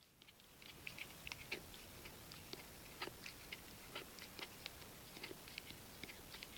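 A dachshund chewing a dried pig ear: faint, irregular crunching bites and clicks, several a second, starting about a second in.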